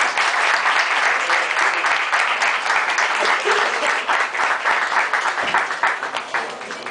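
Applause, many hands clapping in a dense steady patter that thins out and fades near the end.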